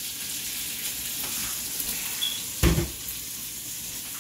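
Sliced onions sizzling in hot oil in a wok, a steady hiss just after they go in. About two and a half seconds in there is a single dull knock.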